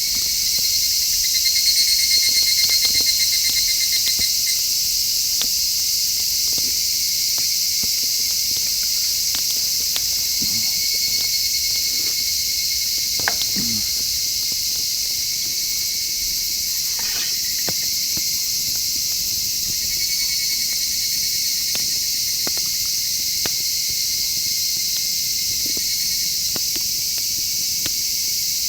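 Dense, steady chorus of night insects such as crickets, with a high trill that stands out about one to four seconds in. Scattered short clicks and snaps run through it, a little louder around the middle.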